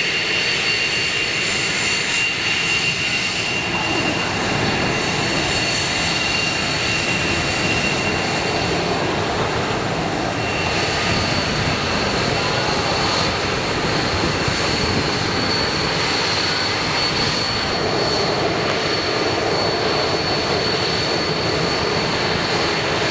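The four Lycoming ALF502 turbofans of a BAe 146-300 running at taxi power: a steady jet rush with an even, high-pitched whine over it.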